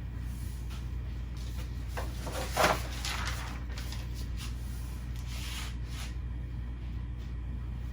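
A steady low hum with a few short rustling noises, and one louder knock about two and a half seconds in.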